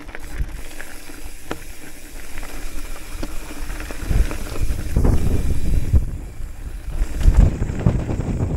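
Hardtail mountain bike rolling down dirt singletrack: wind buffeting the microphone over tyre rumble, with scattered clicks and rattles from the bike. The rumble surges louder about halfway through and again near the end.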